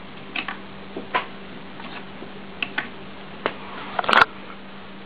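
Sharp little plastic clicks and taps from Lego Technic parts being handled: a handful of separate clicks, then a louder quick cluster of clicks about four seconds in, over a steady low hum.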